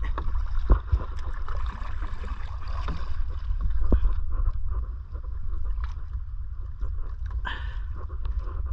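Wooden paddle dipping and splashing alongside a small outrigger boat, with scattered knocks and a louder splash about seven and a half seconds in. A steady low rumble of wind on the microphone runs underneath.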